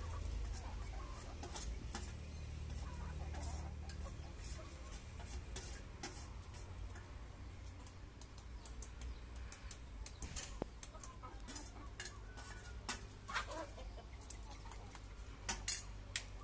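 Domestic chickens clucking close by, with scattered light clicks and taps over a low steady rumble; a few sharper ticks and short calls come near the end.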